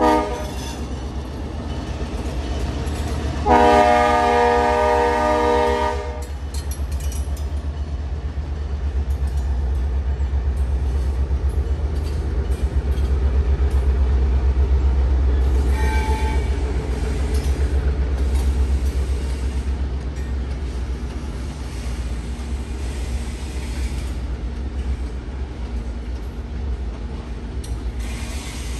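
Diesel freight locomotive's horn: a short note at the start, then a long loud chord blast from about three and a half seconds in, lasting some two and a half seconds. Under it runs the steady low rumble of the locomotive and loaded hopper cars rolling past, with rhythmic clicking of wheels over rail joints.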